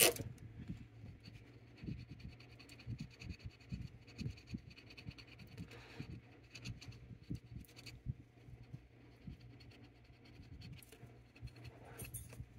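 Faint, irregular scratching and small taps of a cotton swab being scrubbed into the optos on a pinball opto board to clean their dirty windows, with a sharper knock right at the start and a steady low hum underneath.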